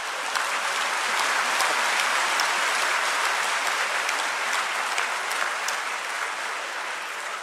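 Audience applauding: the dense patter of many hands clapping, swelling in the first couple of seconds and then slowly tapering off near the end.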